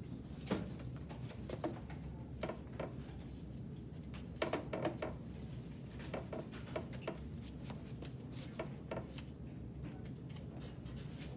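Athletic tape being handled and applied around an ankle: irregular short crackles and clicks, a few close together about halfway through, over a steady low hum of room noise.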